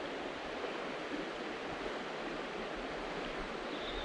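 Steady rushing of a small river running high in flood, flowing water with no breaks or distinct events.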